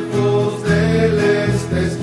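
Rondalla music: a group of voices singing a Christian song in harmony over guitars and bass, in held, sustained phrases.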